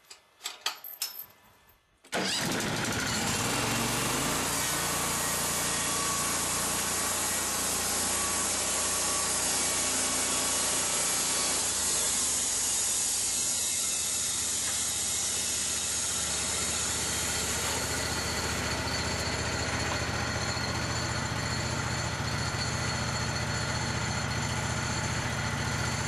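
Linn Lumber Model 190-A gas-engine bandsaw mill running steadily as its blade saws through a log. It comes in suddenly about two seconds in, after a few faint metal clinks.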